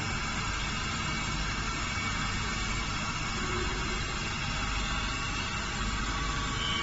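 Automatic CNC cutter grinder running: a steady machine hum with several steady whining tones over an even background noise.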